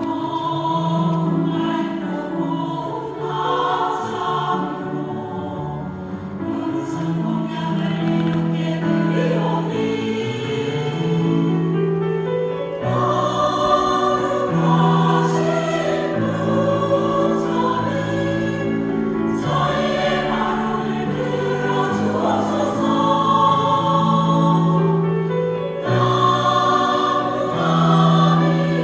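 Choir singing a slow Korean Buddhist hymn, many voices holding long notes in shifting chords.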